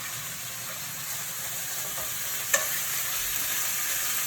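Ground beef sizzling in a hot frying pan as it is stirred, a steady hiss with a single sharp knock about two and a half seconds in.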